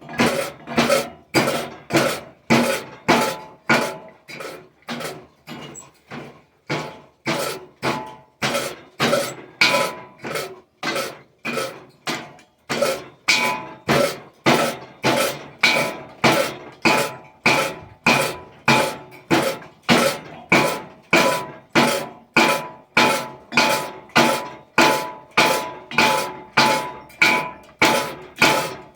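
Homemade foot-powered 10 lb power hammer striking cold steel, a steady run of sharp blows about one and a half to two a second, each with a metallic ring. The blows are lighter for a few seconds early on, then even and strong; the work is flattening two pieces of steel together without heat.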